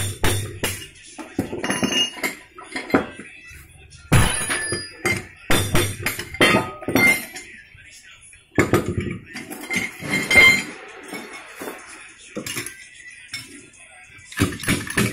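Irregular clinks and knocks of steel on steel as the parts of a Kawasaki 175 motorcycle crankshaft are handled, set down and levered against each other. Some strikes ring briefly.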